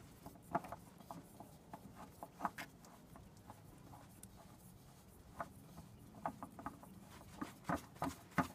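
Faint, irregular rubbing and small clicks of a new spin-on fuel filter (CAT 1R0749) being turned onto its base by hand, with a few louder clicks near the end.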